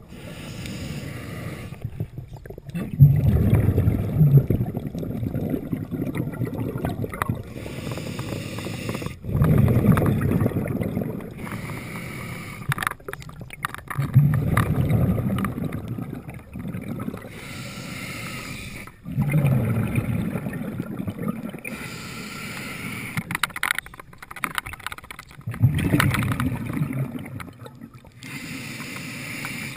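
Underwater water noise on a camera mounted on a speargun: a low rushing rumble that swells about every five to six seconds and fades between swells.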